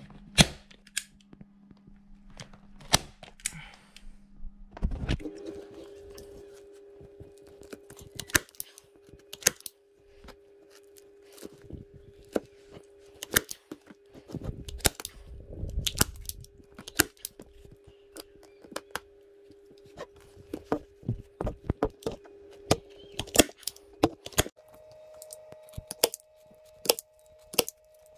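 Hand staple gun firing staples, sharp snaps at irregular intervals, often in quick pairs, as a new cover is fastened to a motorcycle seat.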